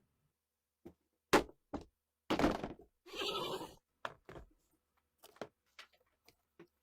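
Rusty MP40 parts being handled and worked by hand: a string of sharp knocks and clicks, the loudest about a second and a half in, with two brief scraping sounds a little after two and three seconds in.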